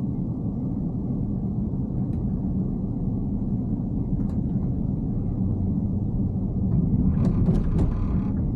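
Steady low road and tyre rumble of a Tesla Cybertruck driving at speed, heard with no engine note. About seven seconds in comes a brief cluster of ticks and scratchy noise.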